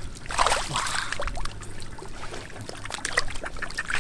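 Water splashing and trickling, with a louder splash about half a second in and many small spatters and clicks.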